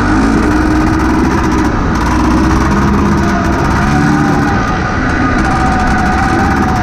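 1986 Honda Odyssey's engine running under way, its pitch rising and falling repeatedly as the throttle is worked on a dirt trail, over a heavy low rumble.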